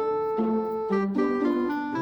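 Instrumental background music: a simple melody of sustained pitched notes, changing every quarter to half second.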